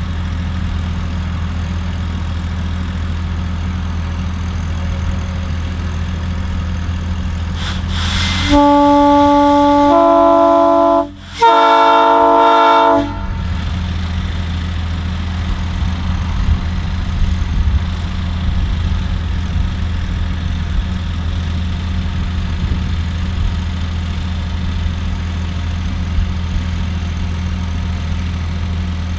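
New-cast Nathan P3 three-chime locomotive air horn, blown in two blasts after a short hiss of air: the first, about two and a half seconds long, shifts pitch partway through, and the second, about a second and a half, sounds a fuller chord. A steady engine hum runs underneath.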